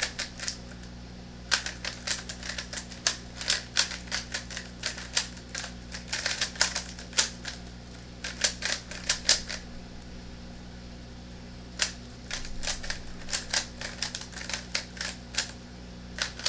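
A Rubik's Cube being turned rapidly during a speed solve: quick runs of sharp plastic clicks as its layers snap round, with a pause of about two seconds midway.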